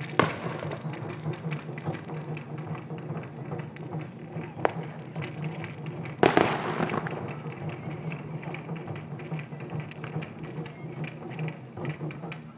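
Aerial firework shells bursting with sharp bangs: one right at the start, a smaller one partway through, and the loudest about six seconds in, its boom trailing off, all over a steady low hum.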